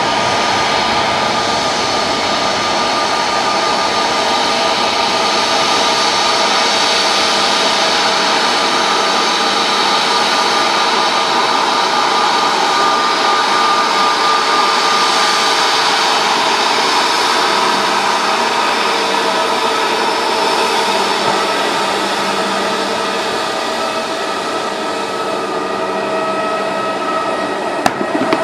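Boeing 787 jet engines running steadily: a loud, even rush with a high whine held over it, easing a little near the end, with a couple of sharp clicks just before it stops.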